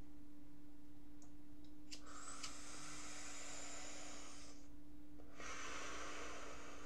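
A man breathing heavily, two long noisy breaths, the first after a small click about two seconds in, while he takes a pill by mouth. A steady low electrical hum runs underneath.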